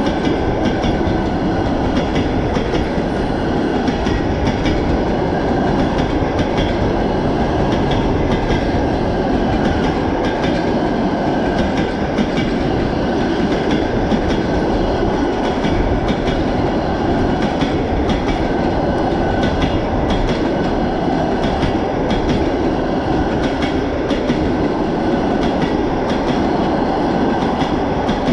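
A long passenger train's coaches rolling past close by, wheels clattering over the rail joints in a steady stream.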